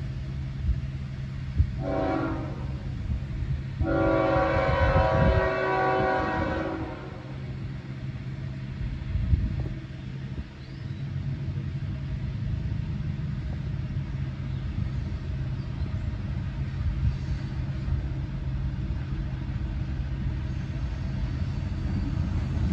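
CSX freight locomotive's multi-chime air horn. A blast fades out just after the start, a short blast follows at about two seconds, then a longer blast from about four to seven seconds: the short-long ending of a grade-crossing signal. After that comes the steady low rumble of the approaching diesel locomotive and train.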